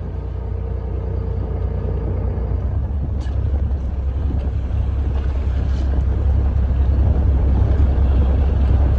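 Steady low rumble of a fishing boat's engine mixed with wind buffeting the microphone, growing slowly louder.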